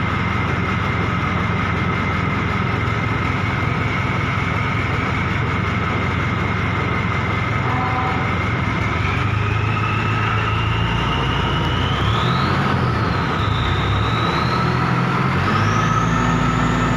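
A machine running steadily with a low hum and a high whine; the whine climbs in pitch from about nine seconds in and rises higher again near the end.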